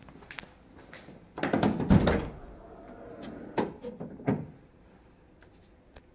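Driver's door of a 1986 Chevrolet Camaro being opened, with a loud clunk and rattle about one and a half seconds in, then two sharper knocks about a second later.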